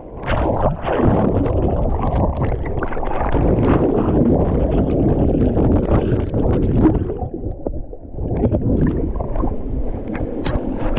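Rushing, gurgling water of a waterfall slide close to the microphone, with splashes and knocks throughout and a brief lull a little after seven seconds.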